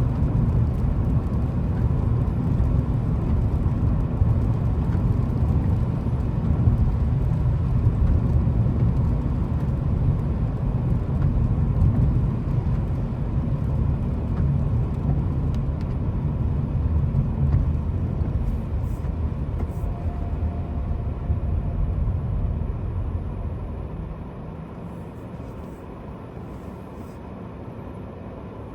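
A car on the move: a steady low rumble of engine and road noise, which eases off and quietens about 24 seconds in, as if the car slows down.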